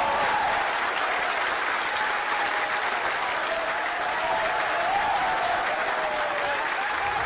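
A crowd of people cheering and applauding, with shouts and whoops over steady clapping.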